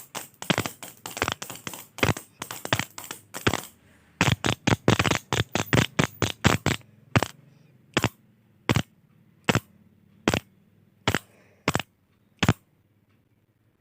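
A click pen's button clicked fast and unevenly, then slowing to single clicks about one every three-quarters of a second, the last of eight spaced clicks about twelve and a half seconds in.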